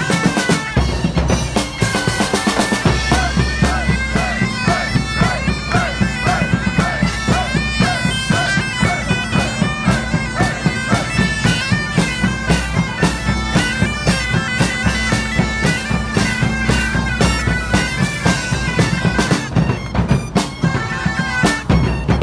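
Bagpipes playing a tune in unison over their steady drone, with drums beating a regular rhythm beneath, in a live acoustic band performance.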